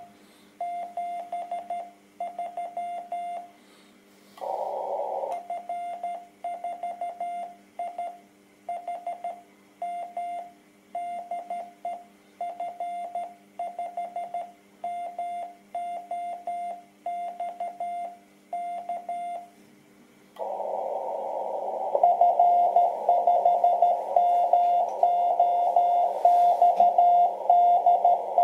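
Morse code (CW) from a low-power amateur transceiver on the 10 MHz band, a keyed tone near 700 Hz. For the first twenty seconds it is the station's own sending, clean sidetone with no band noise. Then the receiver opens with a band of hiss, and the other station's CW signal comes in louder over it, at about S7.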